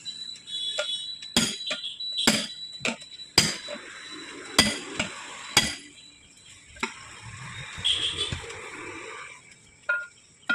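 Sharp metal-on-metal clanks, about nine irregular strikes, some ringing briefly, from tools working a 700-15 tyre off its wheel rim.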